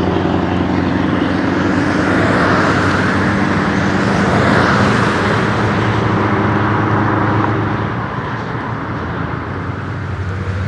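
Scania V8 truck engine pulling an LZV road train past, with a steady deep drone and tyre and road noise that swells a few seconds in. The engine note drops away about eight seconds in.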